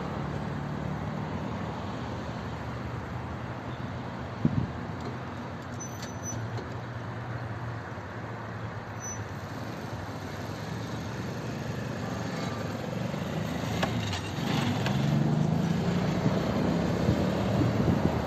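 Road traffic: car engines humming as vehicles pass and turn through the intersection, with one short knock about four seconds in. The engine hum grows louder again near the end.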